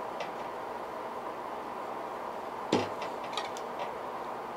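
Plastic epoxy bottle and small mixing cup being handled while epoxy is measured out: a few light clicks and one sharp knock a little past halfway, over a steady background hum.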